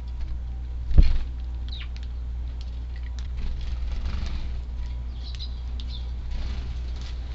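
Strong wind buffeting the microphone with a steady low rumble and a loud thump about a second in, while Eurasian tree sparrows give a few short chirps.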